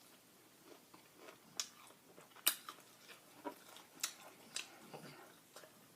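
Close-up chewing and crunching of fried chicken, with sharp crunches scattered through, the loudest about two and a half and four seconds in.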